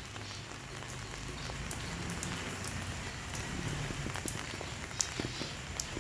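Steady light rain falling and dripping on leaves and surfaces, with scattered single drops standing out now and then.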